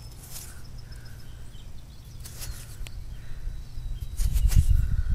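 Low, uneven rumbling noise on the microphone, growing stronger about four seconds in, with a few faint bird chirps and brief rustles of fingers working in dirt and grass.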